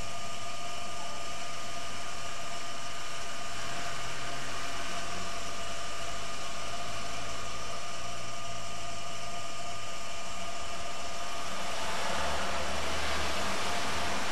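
YCT-200T welding turntable's drive motor running at maximum speed: a steady whirring noise with a faint constant whine, growing a little louder about twelve seconds in.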